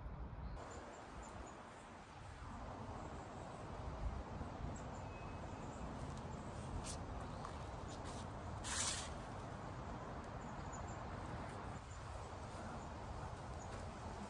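Faint outdoor yard ambience with a few brief clicks and one short scrape about nine seconds in, as a metal patio table frame is scrubbed.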